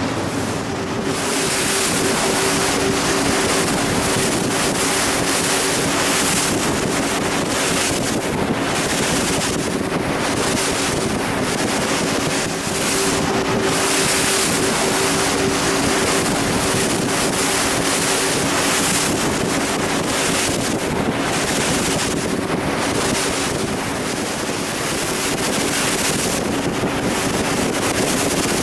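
Motorboat engine running with a steady drone, under gusting wind on the microphone.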